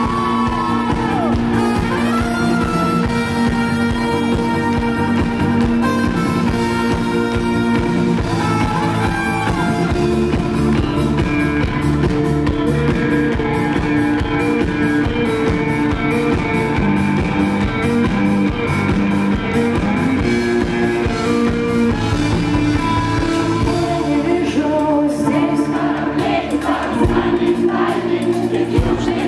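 Live rock band playing a song, full band with a melodic lead line over a steady bass and drums. Near the end the bass and drums drop out and the music thins.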